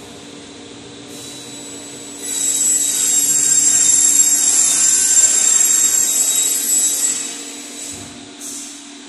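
A power tool runs with a loud, high-pitched hiss and a thin whine, starting about two seconds in and stopping about five seconds later, with a short burst near the end. A steady low hum sits beneath it throughout.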